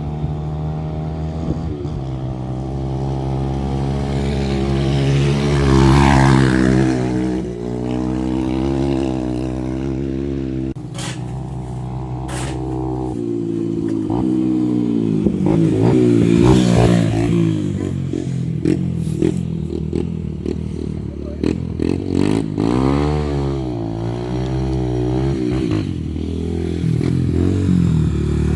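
Honda XR125's single-cylinder four-stroke engine breathing through a Pro Tork 3 aftermarket exhaust, running and revving up and down several times, loudest at swells about six and sixteen seconds in. A couple of sharp clicks come around eleven and twelve seconds in.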